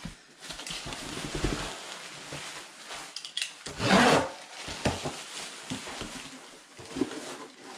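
Thin painter's plastic sheeting rustling and crinkling as it is pulled off a roll in its cardboard box. About four seconds in there is a louder rasping stroke as the sheet is cut free with the box's slide cutter.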